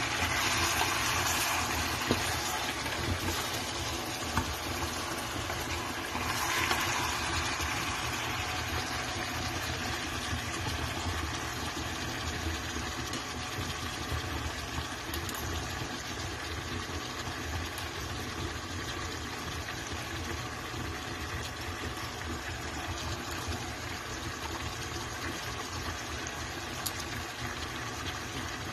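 Chicken pieces and sliced tomatoes cooking in a pot on the stove, a steady sizzle over a constant low hum, louder in the first two seconds and again briefly about six seconds in.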